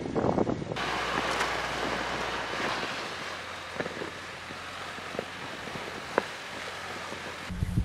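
For under a second, a kei van driving over snow with a rough crunching; then, after an abrupt cut, a steady rush of wind on the microphone, slowly fading, with a few faint ticks.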